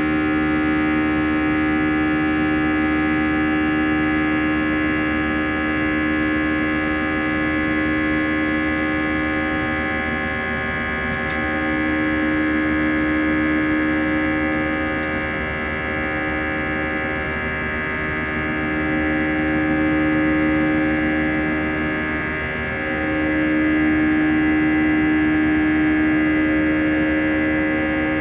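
CFM56-5A turbofan engines of an Airbus A320 heard from inside the cabin: a steady buzzing drone made of many held tones. A low tone in it swells and fades every few seconds.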